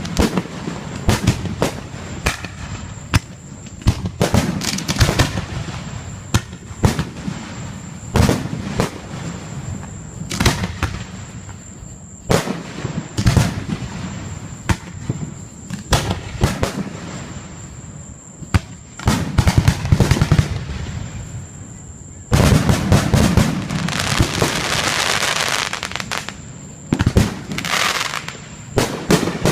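Fireworks going off: a long run of sharp bangs and booms at uneven intervals, building to a dense stretch of rapid bangs and crackling about three-quarters of the way in.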